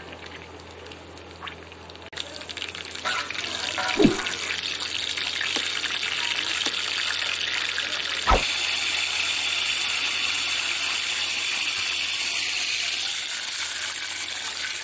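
Cumin seeds frying in hot oil in a wok-style pan: a steady sizzle that builds a couple of seconds in and eases near the end. Two dull knocks of the pan or utensil come partway through.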